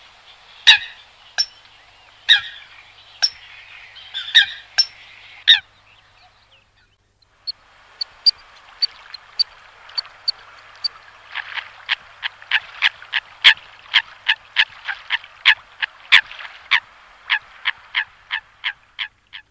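Coots calling: short, sharp, honking calls at irregular intervals, a brief lull about six seconds in, then a quick run of calls at about two a second from roughly eleven seconds on.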